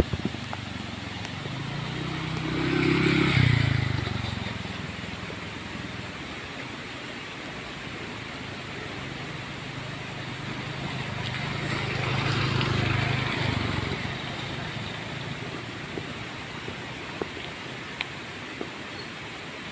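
Two motor scooters passing close by one after the other, each engine swelling as it comes near and fading as it goes: the first about three seconds in, the second about twelve seconds in. A steady hiss and scattered small ticks run underneath.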